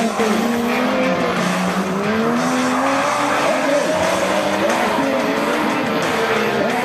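Off-road 4x4 engines revving, their pitch rising and falling unevenly, with more than one engine note overlapping.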